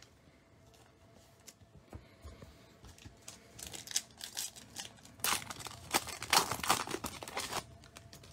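Foil wrapper of a Bowman Chrome baseball card pack being torn open and crinkled by hand, in a run of crackling rustles from about three and a half seconds in until shortly before the end. A few faint clicks come before it.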